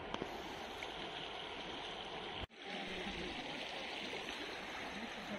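Shallow river flowing over rocks: a steady rush of water that cuts out for an instant about halfway through.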